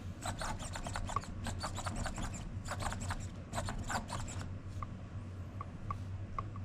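Brushless steering servo in a small RC crawler turning the steering quickly back and forth, in many short whirring and clicking bursts.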